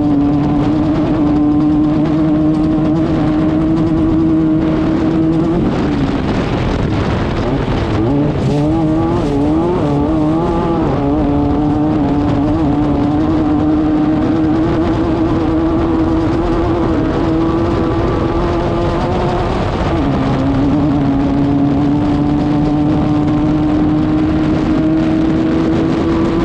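Class 5/1600 off-road race car's air-cooled 1600cc VW engine running hard. Its pitch climbs slowly, then drops sharply about six seconds in and again near twenty seconds, as at upshifts. Around eight to eleven seconds the revs jump up and down unevenly.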